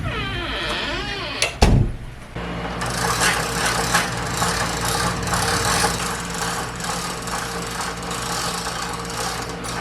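A steady mechanical hum with a noisy rush over it, broken by one sharp knock about a second and a half in.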